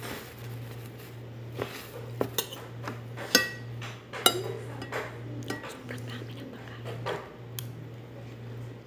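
Metal fork clinking and scraping against a ceramic bowl during a meal: scattered light knocks, the loudest about three and a half seconds in with a brief ring. A steady low hum underneath.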